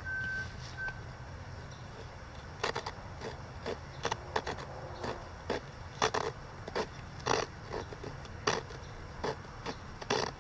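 A blade cutting and scraping into a cedar fireboard in short, irregular strokes, carving the notch for a bow drill. The strokes start about two and a half seconds in.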